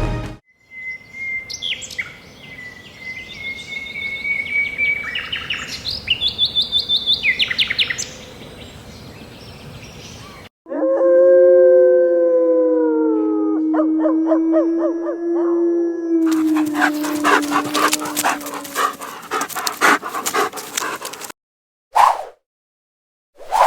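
Animal cries: high thin whining and trilled calls for about ten seconds. After a brief break comes a long low howl that slowly falls in pitch, then a stretch of harsh rasping noise and a few short cries near the end.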